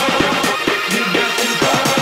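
Electronic dance music with a steady beat, about two beats a second, over a bass line.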